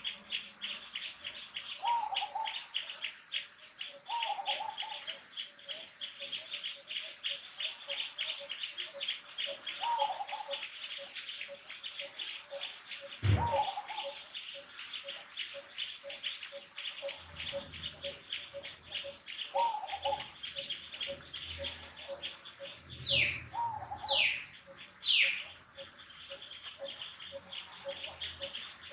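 Outdoor insect and bird ambience: a fast, high insect trill runs throughout over a lower steady pulsing, while a bird repeats a short call every few seconds. There is a single sharp knock about halfway through, and three quick falling whistles come near the end.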